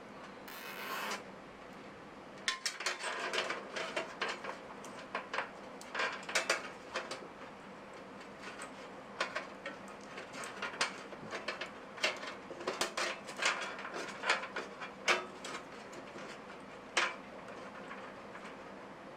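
Hands working on computer hardware: irregular clicks, taps and scraping rubs of plastic and metal parts being handled and fitted.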